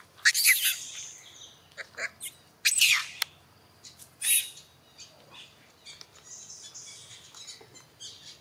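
Macaques squealing: several short, high-pitched shrieks in the first half, some falling in pitch, then fainter high calls.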